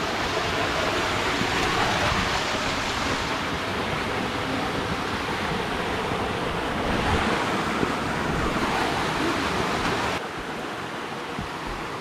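Rushing water of a small waterfall in a mountain stream, a steady loud hiss that swells a little at times and drops slightly in level about ten seconds in.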